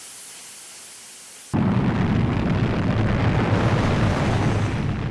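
Faint hiss, then about a second and a half in a rocket motor starts firing abruptly, a loud, steady, deep rushing noise that carries on as the rocket lifts off.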